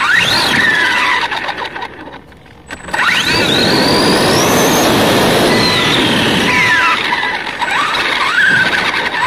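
Small electric motor of a motorized Tonka toy tow truck whining, sweeping sharply up in pitch as it speeds up and gliding down as it slows, several times, over a steady rushing noise. It dips briefly quiet about two seconds in.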